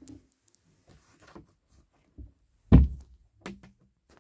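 Cabin locker door being opened by hand: a few short clicks and knocks, with one heavy thump a little past the middle.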